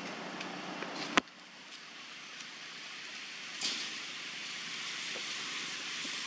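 Steady outdoor forest ambience, an even hiss. A single sharp click comes a little over a second in, and a brief high crackle follows about halfway through.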